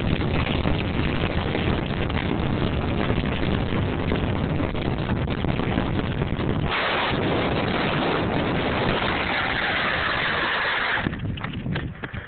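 Wind rushing over the microphone and longboard wheels rumbling on asphalt during a fast downhill ride. About two-thirds of the way through, the low rumble drops out and a higher hiss remains; near the end the noise falls away and a few sharp knocks are heard.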